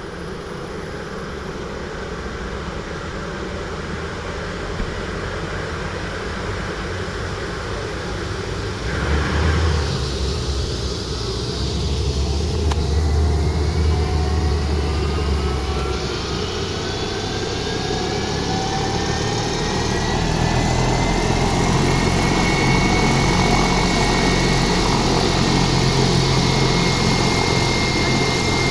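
Helicopter turbine engine starting up: a whine rises in pitch from about ten seconds in and settles into a steady high whine, over a low rumble that grows stronger.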